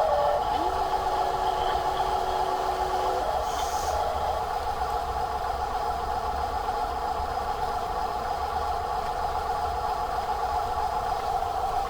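Small electric motor and gearbox of a radio-controlled toy truck running, a steady whine with a low rumble; an extra thin tone joins for the first few seconds.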